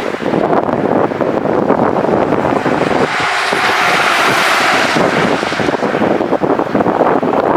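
Wind buffeting the microphone, with a jet airliner's noise swelling and fading in the middle as it passes.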